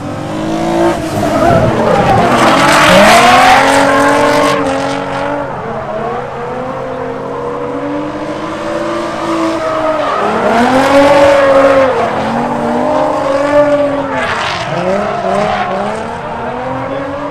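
Drift cars sliding past, their engines revving up and falling back over and over as the drivers work the throttle, with tyres squealing. It is loudest about two to five seconds in and again around ten to twelve seconds in.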